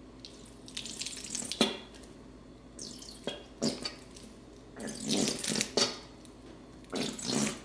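Plastic squeeze bottle of barbecue sauce squirting and sputtering in about four short bursts as it is squeezed, air spitting out with the sauce. These are the "disgusting noises" such a bottle makes.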